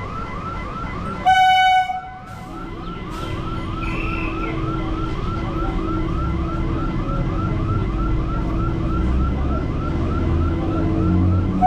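An Indian EMU local train approaching: its horn sounds once, loud and short, about a second in, and the low rumble of the train grows steadily louder after that. Throughout, a warbling warning siren repeats about three to four times a second.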